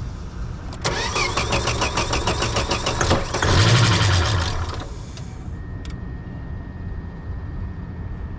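Volvo 850 inline five-cylinder engine cranking rhythmically for about two and a half seconds, then catching and running loudly for about a second and a half before it dies. It fires on starting fluid sprayed into the throttle after about ten years unused, with the fuel pump fuse pulled. A steady high electronic beep from the car follows.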